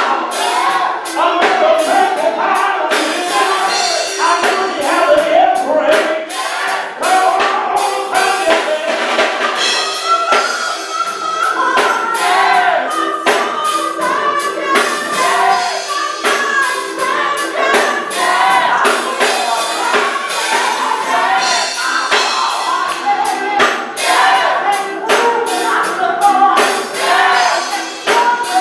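Gospel choir singing a song with a lead voice, backed by a steady beat of drums and tambourine.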